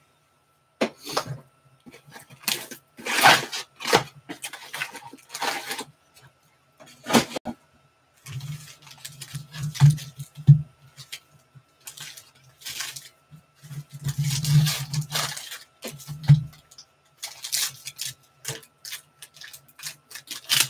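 Foil trading-card pack wrappers crinkling and tearing as packs are ripped open and the cards handled, in quick irregular rustles and rips. A low rumble runs under a few stretches of the handling.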